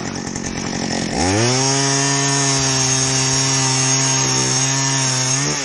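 Small two-stroke engine of a gas-powered ice auger, running at low speed, then revving up about a second in and held at steady high speed, dropping back right at the end.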